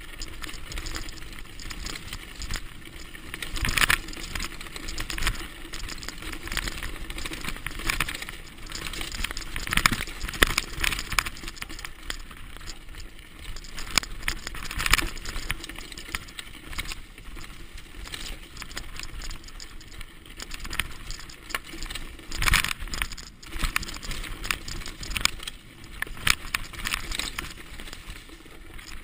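Mountain bike descending a dirt forest trail: tyres rolling over dirt and stones while the bike rattles and clatters over bumps, with a few harder jolts along the way.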